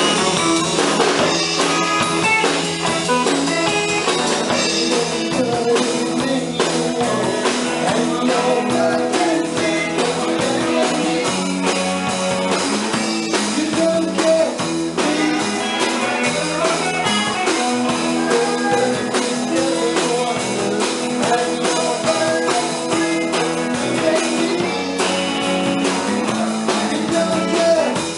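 Live rock band playing: electric guitar, bass guitar and drum kit, with a man singing lead.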